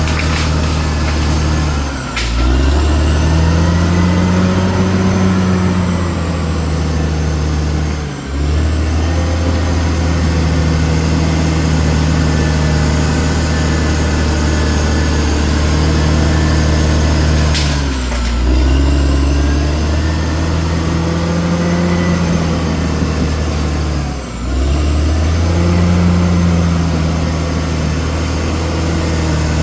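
CAT D6R XL crawler bulldozer's diesel engine running steadily, its pitch sagging and picking back up four times. Two short sharp snaps come through, one about two seconds in and one near eighteen seconds.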